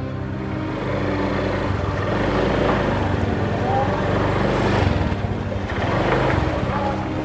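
Small motor scooter engine running as the scooter rides up slowly, getting louder after about a second.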